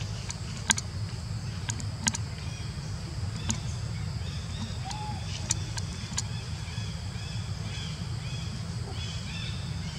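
Outdoor ambience: a steady low rumble under a steady high hiss, with a few sharp clicks, the loudest two about a second apart near the start, and faint short high chirps in the second half.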